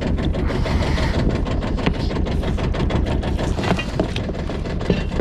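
Boat engine running steadily at idle, with a few sharp clinks and knocks as the anchor rope and chain are hauled in by hand over the bow.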